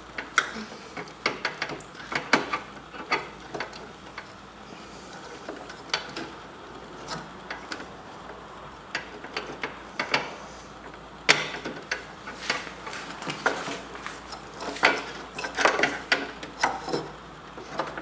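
Irregular plastic clicks and knocks as a light bulb is worked back into its socket in a BMW headlight housing, fumbled into place by hand.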